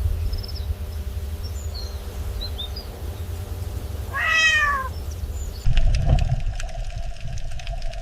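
A single animal call about halfway through, rising then falling in pitch, over a steady low rumble with faint high chirps. About two-thirds in, the background cuts abruptly to a louder low rumble with scattered clicks.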